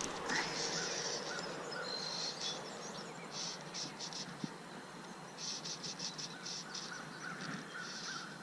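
Insects and birds calling: bursts of short, high, rhythmic chirps, densest a few seconds in and again after about five seconds, with fainter small bird chirps, over steady outdoor hiss.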